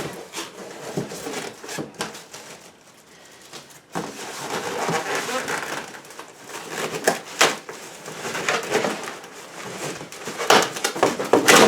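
Cardboard box and foam packing scraping and rustling as a boxed PC case is worked out of its box, with a few sharp knocks. Quieter at first, the rustling grows from about four seconds in.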